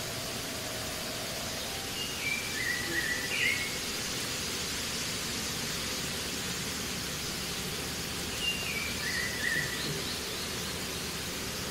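Steady hiss with a bird calling twice, a few seconds apart; each call is a short run of clear notes stepping down in pitch.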